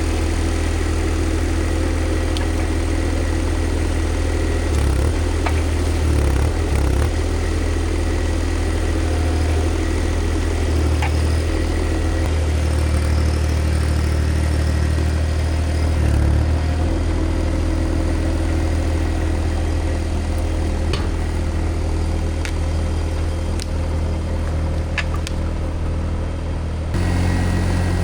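Mini skid steer's engine running steadily, its note shifting a few times as the load or throttle changes, with a few sharp clanks over it.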